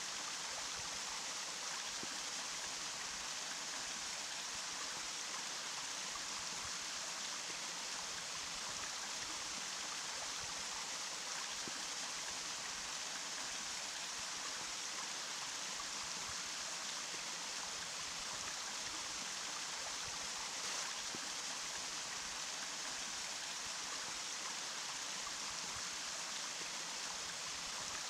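Running water flowing in a steady, unbroken hiss, bright and splashy with little low rumble.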